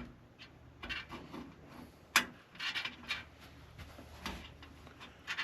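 Computer parts being handled: scattered light clicks, taps and rubbing of metal and plastic, with one sharp click about two seconds in.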